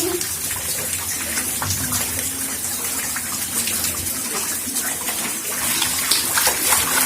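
Heavy rain pouring down steadily, a continuous rushing hiss of falling water.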